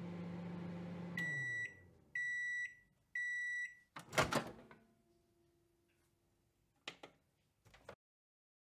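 Microwave oven at the end of its cycle: the running hum winds down, then three high beeps about a second apart signal that cooking is done. A loud clatter of the door opening follows about four seconds in, then two light clicks near the end.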